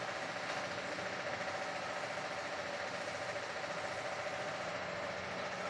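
Steady mechanical whirring with a rapid, fine clicking, as of a geared mechanism running.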